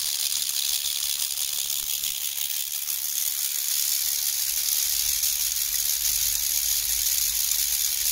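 Steady high hiss of corona discharge from a high-voltage electrostatic corona motor running on its high-voltage module, with a thin steady high whine over it.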